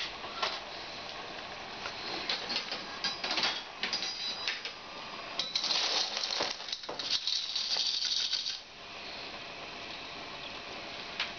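Cooked periwinkle shells clattering against a metal spoon and a stainless steel pot as they are stirred and scooped out to taste one, a dense run of clicks that stops about eight and a half seconds in.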